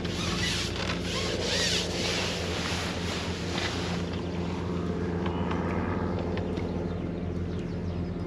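A steady low mechanical hum, like a distant engine, with wind hissing on the microphone for the first few seconds and a few faint bird chirps.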